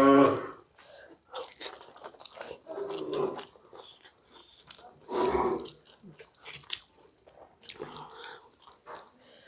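Close-up chewing and mouth sounds of two people eating rice and cabbage curry by hand, with soft clicks as fingers mix rice on steel plates. A brief loud voice-like hum right at the start and another about five seconds in.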